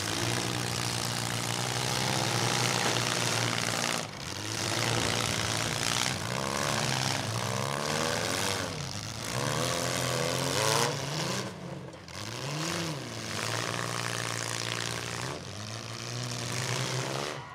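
Engines of several compact demolition derby cars running hard, their revs rising and falling over and over as they push and maneuver against each other.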